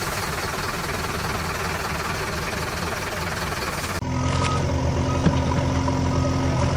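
Vehicle engine sound effect: a dense rushing noise for about four seconds, then an abrupt switch to a steadier engine hum with a single click about a second later.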